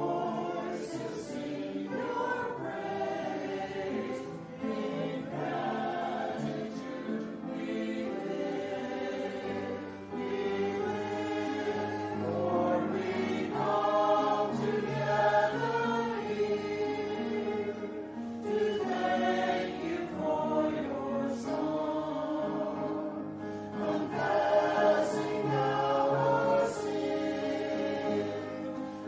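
A choir singing a hymn in several voice parts, with sustained chords changing every second or so.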